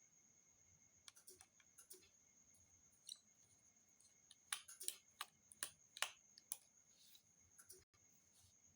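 Faint scattered clicks and light taps of small repair tools against a smartphone's plastic and metal parts as its lower board cover is taken off, coming thickest about halfway through.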